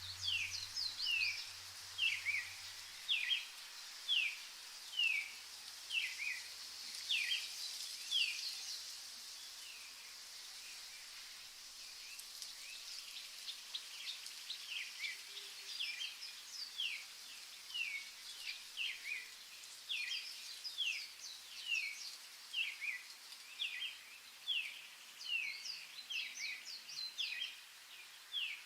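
Small birds chirping again and again in short falling notes over a soft outdoor hiss. The chirping thins out for a few seconds near the middle, then picks up again.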